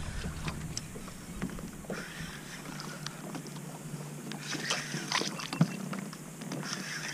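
Water lapping against the hull of a plastic fishing kayak, with scattered small clicks and knocks from the rod and spinning reel as a hooked fish is brought up.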